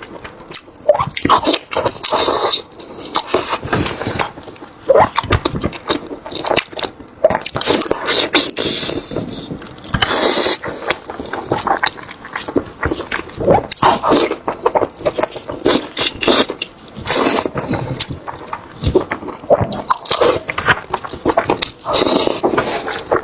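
Close-miked eating: irregular wet chewing, lip-smacking and slurping of soft food, with many small clicks and smacks.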